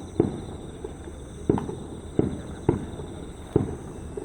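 Fireworks shells bursting over a lake: five loud booms and a few smaller pops, irregularly spaced about half a second to a second apart, each with a short trailing echo.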